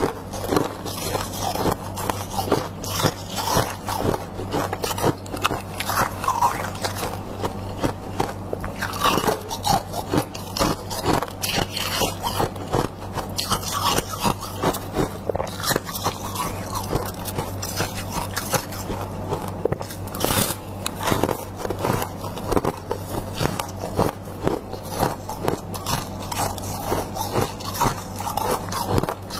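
Freezer frost being bitten and chewed close to the microphone: a dense, continuous run of crunchy, scraping crackles.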